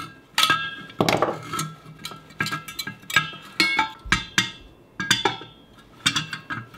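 Irregular metallic clinks and knocks, two or three a second, some of them ringing briefly, as a salvaged water-heater gas burner and its steel gas tube are handled and knocked against a steel wheel rim.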